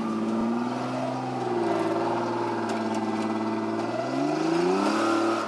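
Off-road 4x4's engine running under load, holding steady and then revving up sharply about four seconds in before easing off near the end.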